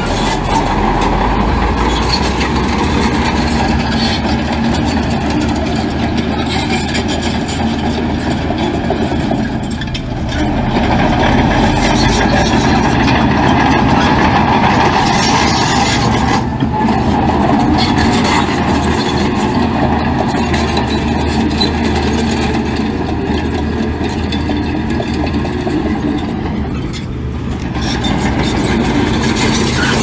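Heavy diesel earthmoving machinery running under load, a steady engine drone that eases off briefly twice and picks up again.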